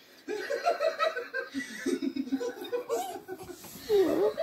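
A woman laughing in quick, choppy bursts. About four seconds in comes a louder, short vocal sound that dips and then rises in pitch.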